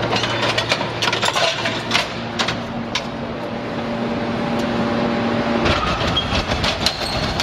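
Hydraulic scrap metal baler shear running under load: a steady hum from its power unit with scattered sharp metal clanks and cracks, thickest in the first few seconds. A deeper rumble sets in near the end.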